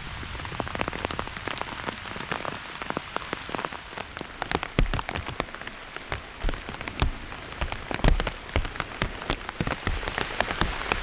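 Heavy rain setting in: a steady hiss with many separate drops tapping, the drops growing thicker and louder from about four seconds in.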